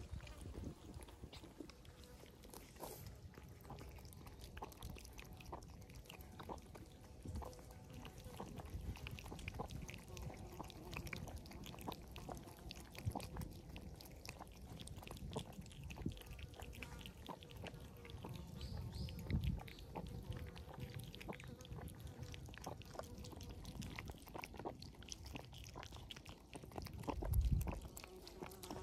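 Several cats crunching dry kibble close by, with lapping at a bowl of milk, a dense run of small crunches and clicks. A brief low rumble comes near the end and is the loudest moment.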